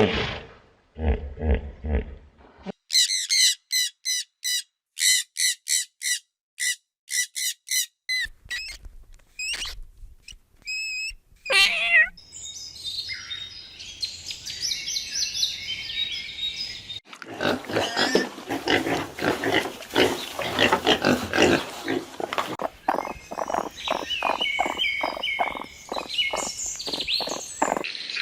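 A series of different animal calls, one after another. Short low grunts come first, then a string of quick high chirps and a few whistled notes. After that comes a falling call, then dense chattering from many birds and a stretch of fast, regular pulsing calls.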